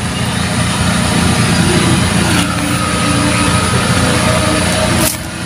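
Fishing pond's water pump running, a loud, steady engine-like drone with a low hum.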